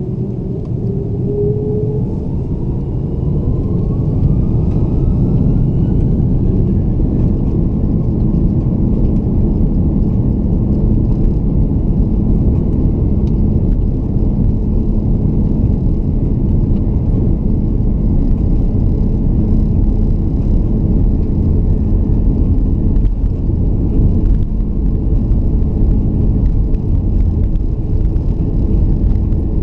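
Airbus A330-300's jet engines spooling up to takeoff thrust, heard from inside the cabin: a whine climbs in pitch over the first several seconds as the noise grows. It then settles into a steady, loud roar and rumble as the airliner accelerates down the runway.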